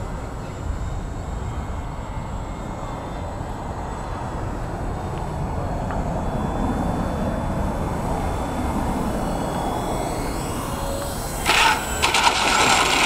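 Twin electric motors of an RC Twinstar model plane whining faintly in the distance over a steady low rumble of wind on the microphone, then turning suddenly loud, with a sweeping change in pitch, as the plane passes low and close over the runway near the end.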